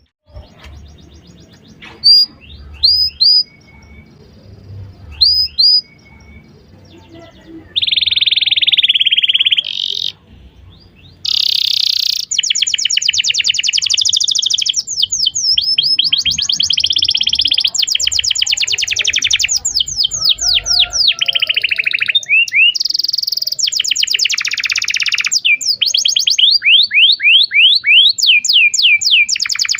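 Domestic canary singing. First come a few separate sharp chirps, then from about eight seconds in a long, almost unbroken song of fast trills and rapidly repeated sweeping notes.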